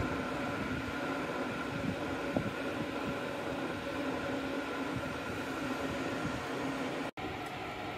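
Steady mechanical hum with a few held tones; it cuts out for an instant near the end.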